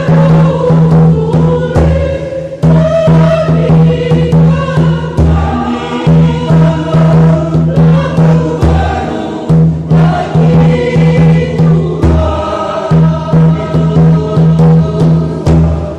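Mixed church choir singing with a tifa drum beating a steady, driving rhythm underneath.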